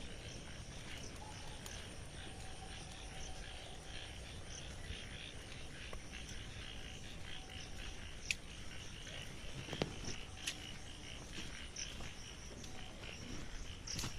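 A steady chorus of many small repeated calls from frogs and insects, with a few sharp clicks about eight to ten seconds in.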